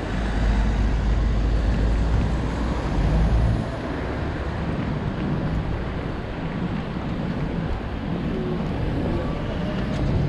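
City street traffic noise with wind buffeting the microphone; a heavy low rumble drops away suddenly about three and a half seconds in.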